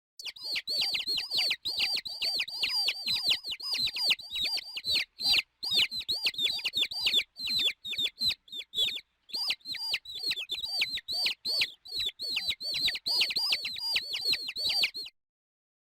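A bird chirping over and over: a fast run of short, high chirps, several a second, with brief pauses, stopping shortly before the end.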